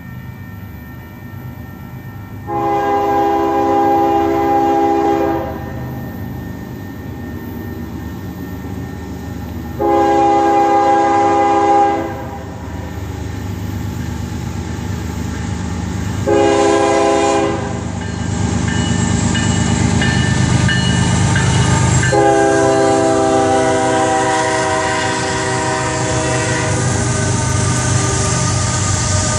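Union Pacific GE Evolution-series diesel freight locomotives approach and sound their multi-note air horn four times, long, long, short, long: the standard grade-crossing signal. The final long blast lasts about five seconds. Under the horn, the diesel and rail rumble grows steadily louder until the lead units pass near the end.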